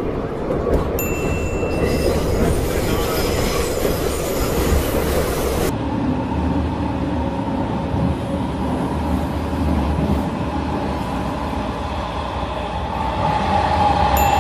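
Metro train running, heard from inside the carriage: a steady rumble of wheels on rails, with a whining tone from the train that grows louder near the end.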